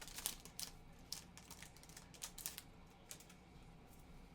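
Trading cards being flipped through by hand, a quiet run of irregular soft clicks and rustles, sparser toward the end.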